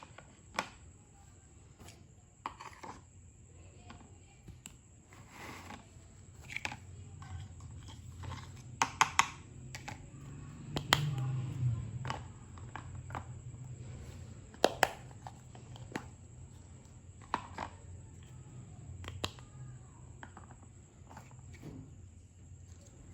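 Small pieces of a toy kitchen set being handled and set down: scattered light clicks and taps, a quick cluster about nine seconds in and single sharper knocks about eleven and fifteen seconds in.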